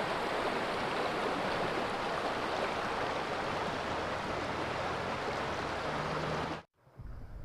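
Steady rush of flowing creek water, even and unbroken, which cuts off abruptly near the end to a much quieter background.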